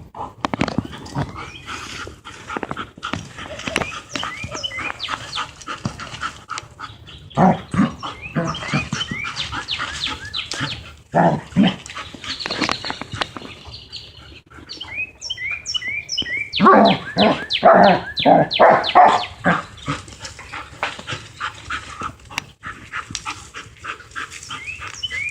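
A dog barking in bursts as it plays with a brick, with repeated knocks and scrapes of the brick on the ground, busiest about two-thirds of the way in.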